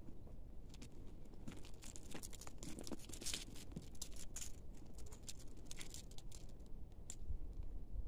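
A cat pawing and scrabbling in dry leaves and loose gravel: quick crackling, rustling scratches, busiest through the middle.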